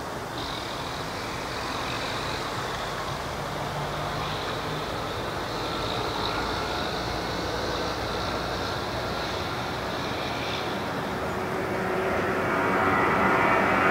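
Boeing 737-700's twin CFM56-7B turbofans running at low taxi power, a steady jet whine and rush that grows louder as the airliner comes closer. A stronger, lower whine swells up in the last couple of seconds.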